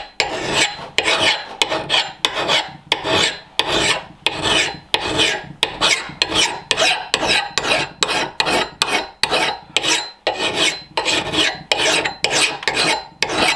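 Medium-coarse flat hand file rasping across the steel cheek of a Rinaldi Calabria axe head in even, repeated push strokes, about two a second. The file is taking metal off the too-convex cheek just behind the edge to flatten its profile.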